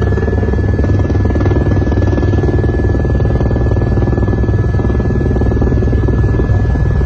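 Helicopter heard from inside the cabin: steady engine and rotor noise with a fast beat from the blades and a thin high turbine whine.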